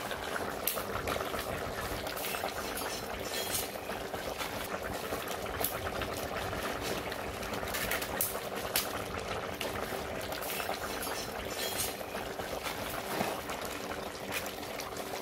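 Zirvak, the meat-and-vegetable broth for plov, boiling hard in a kazan over a wood fire, a steady bubbling with scattered sharp crackles and pops. The fire has been turned up so the broth is at a full boil, the stage at which the rice goes in.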